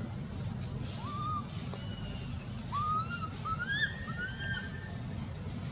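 Infant macaque giving thin whistled coo cries, about five short calls that rise and fall, one about a second in and the rest bunched in the middle: the distress call of a hungry baby wanting to nurse. A steady low hum runs underneath.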